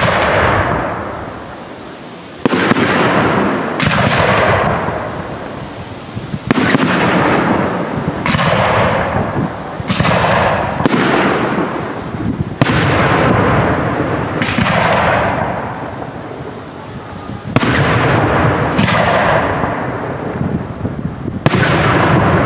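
Aerial fireworks shells bursting, about a dozen sharp bangs coming every one to two seconds, each followed by a long fading echo.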